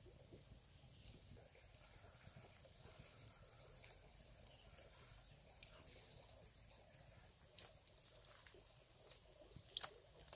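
Near silence: faint scattered crackles from a smouldering campfire's embers, over a faint steady high tone, with a pair of louder clicks near the end.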